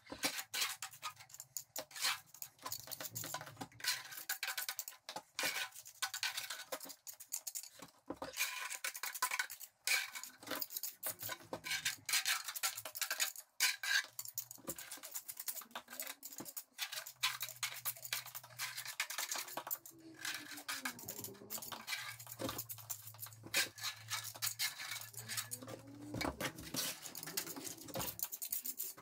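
Steel pointing trowel working lime mortar: repeated irregular scrapes and light clinks as mortar is scraped off a board and pressed into the joints of a stone wall.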